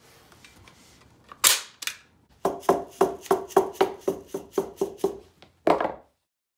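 Rubber mallet knocking on a wooden board: two sharp strikes, then a quick run of about a dozen taps at about four a second, each ringing with the same hollow tone, and one last knock. The sound then cuts off suddenly.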